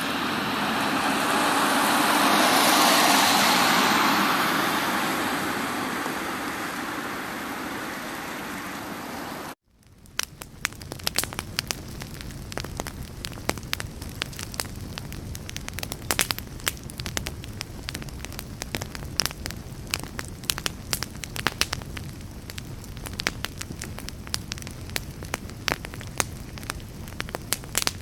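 A broad rushing noise that swells, fades and cuts off abruptly about ten seconds in, then a steady crackling full of sharp pops and snaps.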